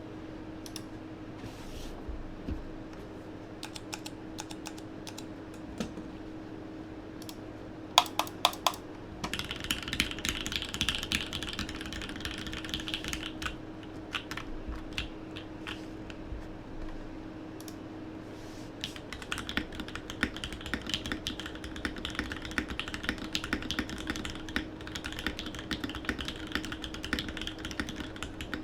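Typing on a Think6.5 V2.0 mechanical keyboard with a polycarbonate build and Gateron Black Ink V2 linear switches. Scattered single key presses and four louder strikes about eight seconds in give way to runs of fast typing, from about nine seconds in and again from about nineteen seconds. A low steady hum runs underneath.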